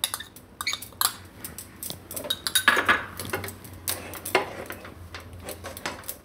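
Spatula scraping and tapping against a steel pan in quick, irregular strokes, stirring a crumbly cashew and milk-powder dough as it cooks.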